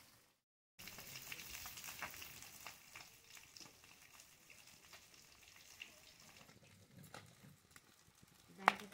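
Pieces of aar fish frying in oil in a kadai, sizzling, with scattered clicks and scrapes of a spoon stirring them. One sharp clack near the end.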